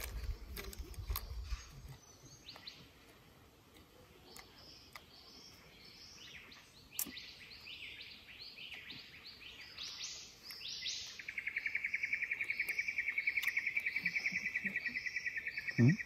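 Wild birds calling, a run of short falling notes repeated over and over. About two-thirds of the way in, a steady, fast-pulsing buzz joins them and becomes the loudest sound.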